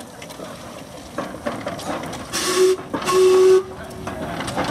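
Steam whistle on the Steam Elephant, a replica early colliery locomotive, sounding two blasts about two and a half seconds in, a short one and then a slightly longer one, each a steady tone with a rush of steam hiss. Between and around them, softer steam hiss and irregular clanks of the engine as it moves off.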